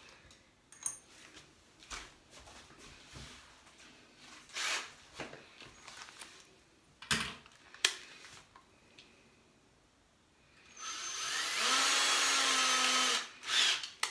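Power drill fitted with a 3/32-inch bit, run in one steady burst of about two and a half seconds near the end, its motor pitch rising slightly. Before it come light clicks and knocks of the drill and bit being handled.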